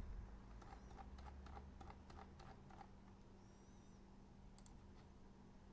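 Near silence with faint, quick clicks from computer use, several a second during the first three seconds, over a low steady hum.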